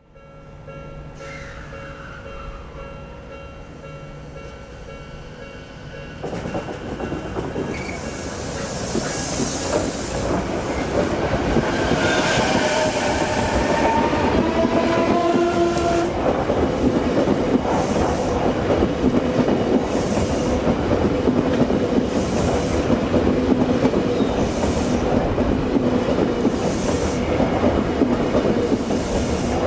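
Odakyu Line electric train gathering speed, its traction-motor inverter whine climbing in pitch in steps and growing louder. Wheel and rail noise grows over it, with hiss swelling every second or so later on.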